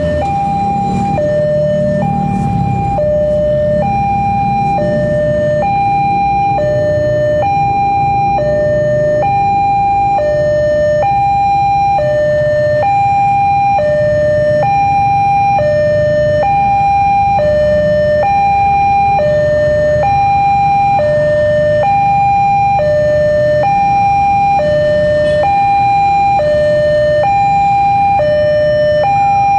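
Electronic two-tone railway level-crossing alarm sounding continuously, alternating between a high and a low tone about every half second, warning of an approaching train. A steady low rumble runs underneath.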